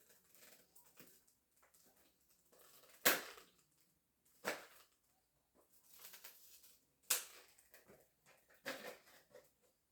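Close-up handling of a box and small parts: soft rustling, with four sharp clicks or snaps spaced one to two seconds apart.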